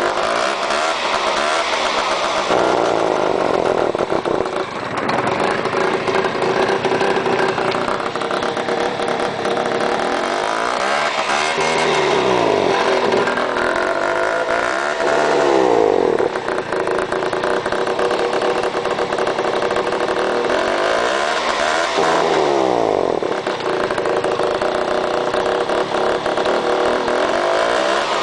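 Peugeot Speedfight 2 scooter's two-stroke engine running, its pitch rising and falling several times as the revs go up and down. The owner calls the engine noise strange.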